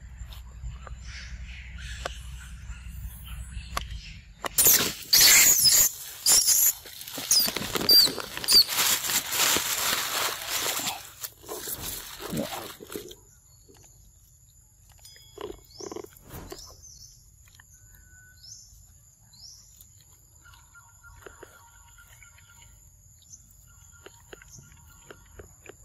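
Loud rustling and crackling for about eight seconds, starting about four seconds in. It is followed by quieter outdoor sound: a steady high whine and a few short, falling bird chirps.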